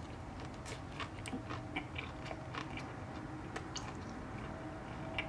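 A person chewing a mouthful of Wendy's crispy panko-breaded fish sandwich, with small, irregular crunches and mouth clicks.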